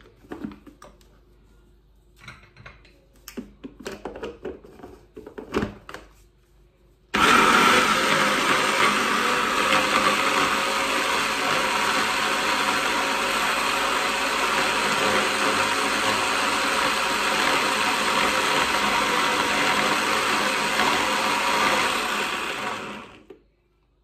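Stick blender with a mini chopper bowl chopping parsley into pesto: after a few handling clicks, the motor switches on about seven seconds in, runs steadily for about sixteen seconds, then winds down. It is run in spells with pauses so the motor does not overheat.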